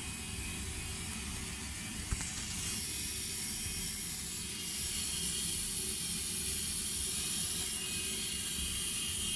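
Steady FM static hiss from a Radmor 5102 TE radio receiver tuned where there is little or no station signal. There is a single click about two seconds in, after which the hiss turns brighter.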